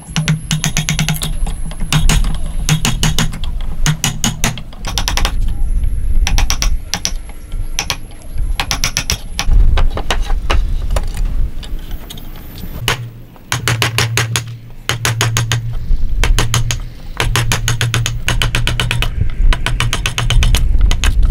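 Wood chisel driven into a hardwood block by rapid mallet blows, in quick runs of sharp strikes with short pauses between, as a joint's mortise is chopped out.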